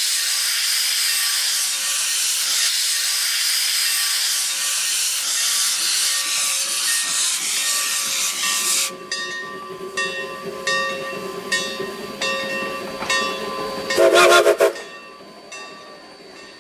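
Shay geared steam locomotive (#7 Sonora Shay) venting a loud steady hiss of steam from its open cylinder cocks, then pulling away with evenly spaced exhaust chuffs about two a second. A short, loud whistle blast sounds near the end.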